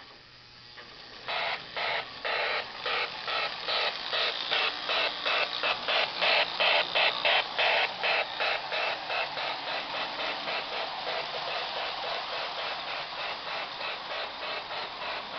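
Lionel New York Central toy steam locomotive chuffing as it pulls away. The chuffs start about a second in, slow at first, then quicken to a steady beat of about three a second. They are loudest in the middle and slowly fade.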